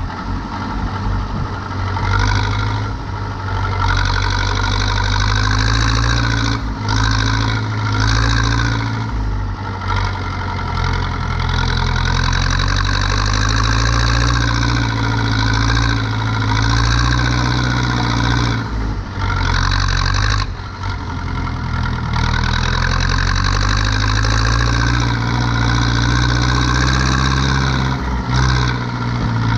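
Zetor 7245 tractor's four-cylinder diesel engine running steadily under load while turning hay. The engine note dips briefly several times, as if the throttle is eased, then picks back up.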